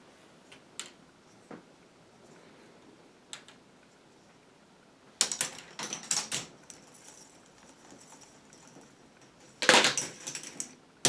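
A ball running down a K'NEX plastic ball-machine track, clattering against the plastic pieces in two loud bursts of rapid clicks, about five seconds in and again near the end, the second as it comes off the end of the unfinished track and lands.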